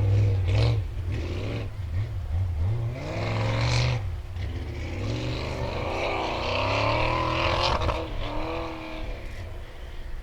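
Willys CJ5 off-road competition vehicle's engine revving hard, its pitch rising and falling several times, with a sharp crack near the end.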